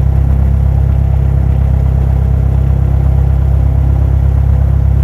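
Cessna 172 Skyhawk's piston engine running steadily at low power, a constant deep drone with no change in pitch.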